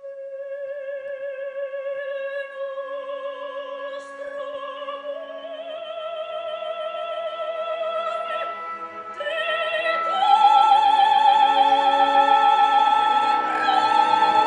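Operatic soprano singing with a wide vibrato over soft orchestral accompaniment. The line climbs in steps and grows louder, reaching a loud, held high note about ten seconds in.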